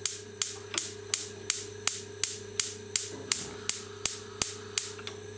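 Gas hob's electric spark igniter clicking steadily, about three sharp ticks a second, as the burner knob is held down, stopping near the end. The burner is not catching.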